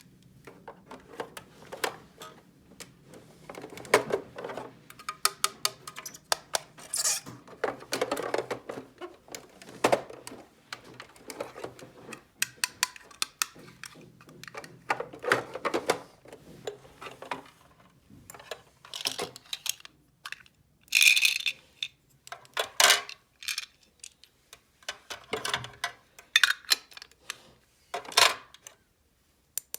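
Small plastic toy pieces from a miniature cash register and refrigerator play set being handled: irregular clicks, taps and light clatters, with sharper knocks in the second half.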